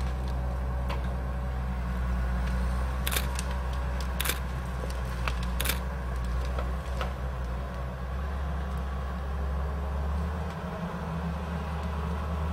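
Tigercat 1055 forwarder's diesel engine running steadily, with a few sharp knocks in the middle.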